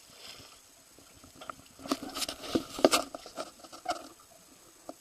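A faint splash of conch meat being rinsed in the sea, then a cluster of sharp clicks, knocks and scrapes about two to three seconds in from a knife working the conch on a boat's cleaning board.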